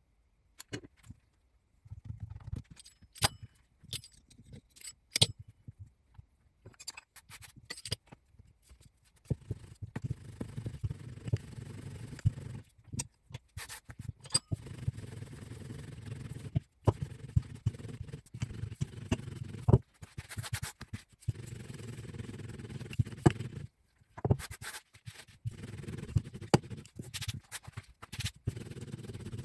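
Hands and a spoon working dough on a silicone baking mat: scattered sharp taps and clicks at first, then, from about a third of the way in, long stretches of low rubbing and pressing as the dough is flattened out, still broken by clicks.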